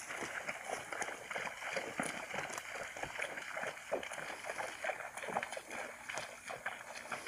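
Shallow water splashing and sloshing in a busy, irregular run of many small splashes and clicks.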